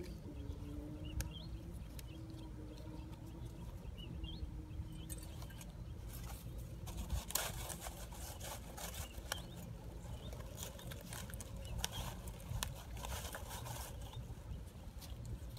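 Long green grass leaves rustling and crackling as they are handled and tied to bamboo sticks by hand. Dense bursts of crackling start about five seconds in, over a steady low rumble.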